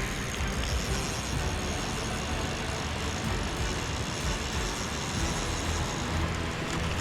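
Steady rush of water pouring through the spillway, an even noise with a deep rumble underneath.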